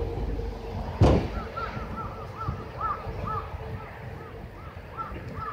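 One heavy thud about a second in, as a cut pine log is dropped while logs are loaded into a truck bed. It is followed by a bird's rapid chirping, short arched notes repeating about four times a second.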